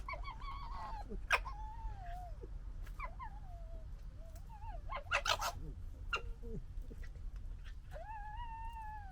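Red fox cubs calling: a string of long, wavering, high whining calls, broken by short harsh chattering bursts of gekkering about a second in and around five seconds in.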